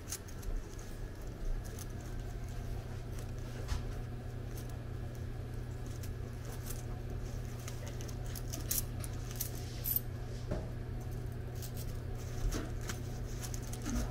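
Café room tone: a steady low hum with scattered small clicks and clinks.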